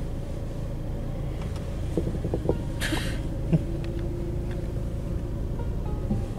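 Low, steady rumble of a car's engine and cabin, heard from inside the car, with a few light clicks about two seconds in and a short hiss about three seconds in.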